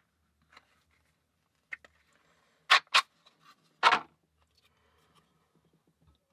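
A few separate sharp clicks and knocks of small hard objects being handled and set down on a bench, as a disassembled cross lock's parts, pin tray and tools are moved about. The loudest are two quick clicks a little before halfway, then a heavier knock a second later.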